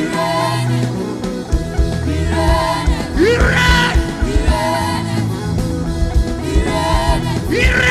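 Live gospel worship band playing a steady beat with drums and bass, with a voice singing over it.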